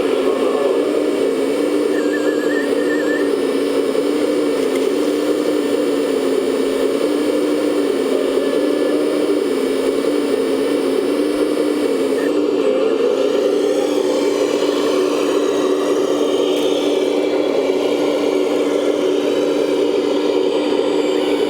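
Motor of a 1/14-scale RC construction machine running steadily, its hum wavering slightly up and down in pitch as the load changes.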